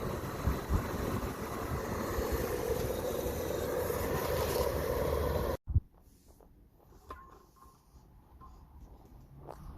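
Steady road and wind noise from a vehicle on the move, with wind buffeting the microphone; it cuts off abruptly about five and a half seconds in. A much quieter stretch with a few faint clicks and taps follows.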